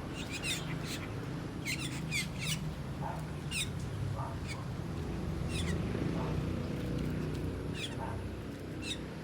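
Asian glossy starlings calling: a dozen or so short, sharp squeaky notes, each falling in pitch, scattered irregularly, over a steady low background rumble.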